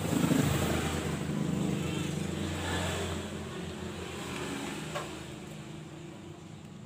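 Steady low rumble of a motor vehicle engine running nearby, loudest at first and fading toward the end. A single sharp click about five seconds in as an electrical plug is pushed into a power strip.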